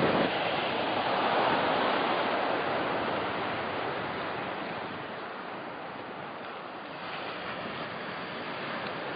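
Sea surf breaking on the shore, a steady rush of noise that slowly gets quieter over the first several seconds.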